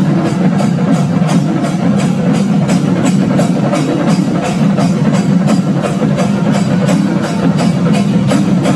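Loud music driven by percussion, with a quick, steady drumbeat.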